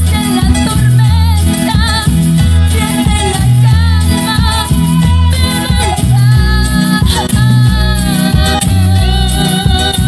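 A female soloist sings a Spanish-language gospel praise song with a live church band: keyboards, drums and a bouncing bass line. The congregation sings along.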